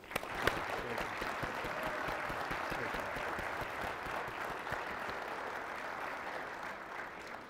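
Audience applauding, many hands clapping steadily and fading out near the end.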